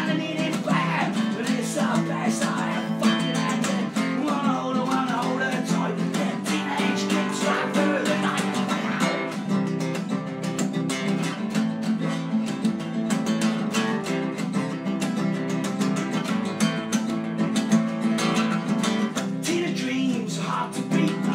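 Acoustic guitar strumming an acoustic punk song, with a melodic line wavering over the chords.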